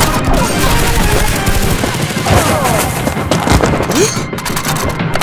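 Dubbed-in automatic gunfire sound effects: a dense, rapid stream of shots that thins to scattered single shots after about three seconds.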